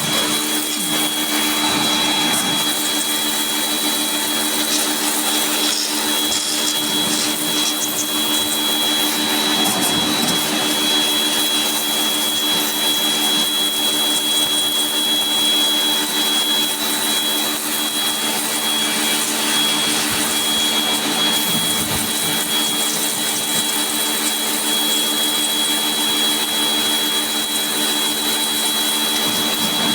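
An electric motor on a cleaning machine runs steadily at full speed, with a constant high-pitched whine over a rushing hiss.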